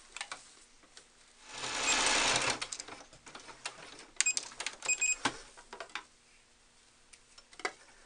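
Computerized sewing machine stitching a short seam in a quick run of about a second, then a few clicks and two short electronic beeps as its buttons are pressed, with fabric being handled.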